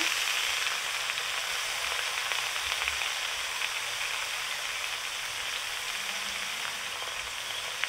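Vegetables frying in mustard oil in a steel pot, with washed pumpkin greens piled in on top: a steady sizzle that slowly fades.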